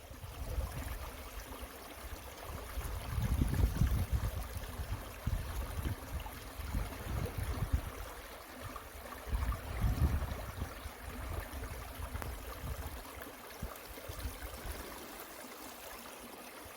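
A small stream running, with a low rumble that swells about three to four seconds in and again around ten seconds.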